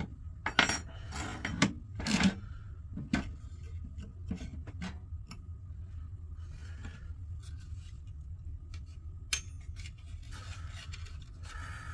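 Computer slot cards and their metal brackets clicking and clattering as they are handled and set down on a wooden workbench: several sharp clicks in the first few seconds, then fewer, with a rubbing noise near the end. A steady low hum runs underneath.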